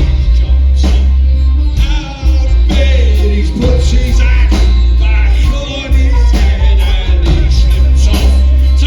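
Live band playing amplified music with singing and drum hits over a very heavy, booming bass.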